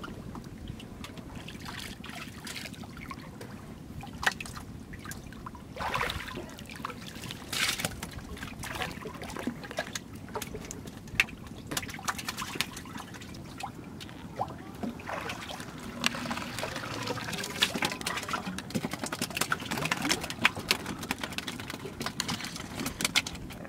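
Water splashing and trickling around a wooden canoe being poled through shallow water. Irregular small splashes and sharp clicks are scattered throughout, and they come more often in the second half.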